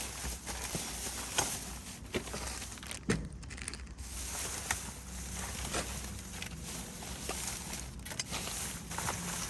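Rustling of plastic bags with scattered knocks and clatter as items are pulled out and rummaged through by hand.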